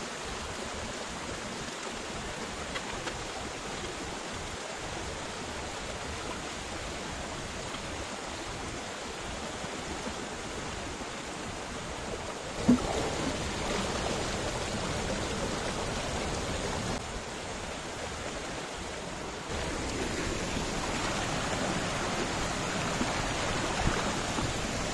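Small mountain stream rushing and splashing over rocks, a steady noise of running water. A single sharp knock sounds about halfway through.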